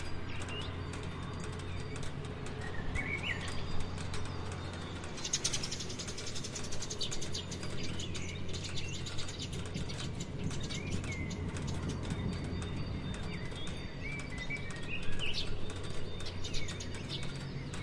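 Steady rain with fine drop ticks, and small birds chirping briefly a few times, about three seconds in and again near the end.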